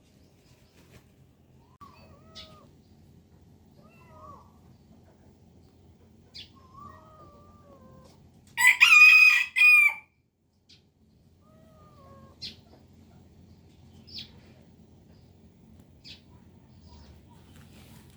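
A rooster crows once, loudly, about halfway through. Before and after it come faint, wavering kitten mews and a few short high chirps.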